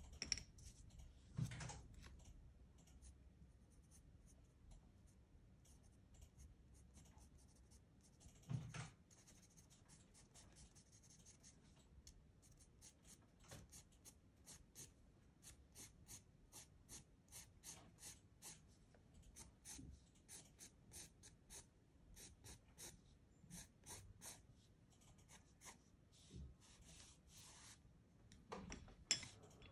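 Pencil scratching on textured pastel paper in quick, short, repeated strokes, a few a second, through the middle and later part. A couple of soft knocks of handling come in the first few seconds.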